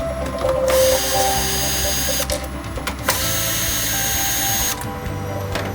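Cordless electric screwdriver running in two bursts of about two seconds each, driving out the screws of an LCD TV's back cover, with short pauses and a few clicks between the bursts.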